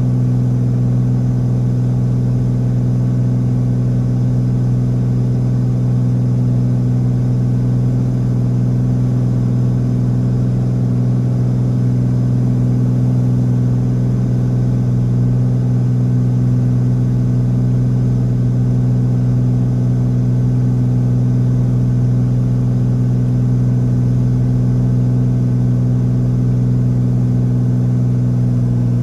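Single-engine light aircraft's propeller engine running with a steady drone, heard from inside the cockpit on final approach to land.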